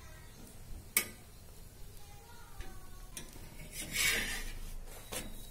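Metal spatula on a tawa cooking a paratha: a sharp clink about a second in, a short scrape around four seconds in as it presses against the paratha and pan, and a light click near the end.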